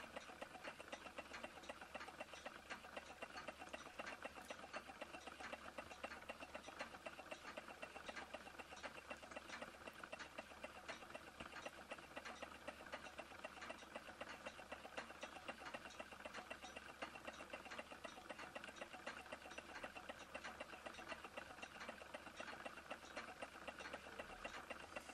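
Faint model Stirling engines running, a fast, even mechanical ticking and clatter.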